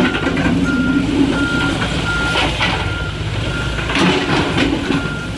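A heavy excavator's warning alarm beeps at one pitch about every 0.7 seconds over its running diesel engine. The engine rises in load near the start and again about four seconds in, with a few knocks and scrapes from the digging.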